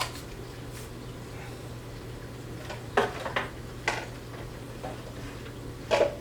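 A few short, light clicks and knocks of hardware being handled, about three seconds in and again near the end, over a steady low hum.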